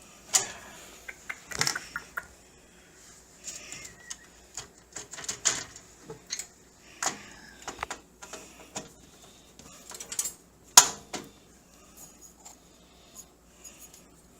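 Screwdriver working a stubborn motherboard screw, with irregular sharp clicks and pops as the screw and its standoff slip in the case instead of coming out; the loudest pop comes about 11 seconds in.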